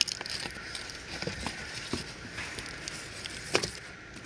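Cardboard box and plastic wrapping rustling and crackling as a new car AC evaporator coil is handled and lifted out, with scattered small clicks and two sharper knocks, one at the very start and one about three and a half seconds in.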